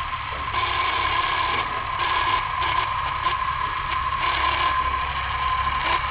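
Film projector running, most likely as a sound effect: a steady mechanical whir and rattle with a constant high hum underneath.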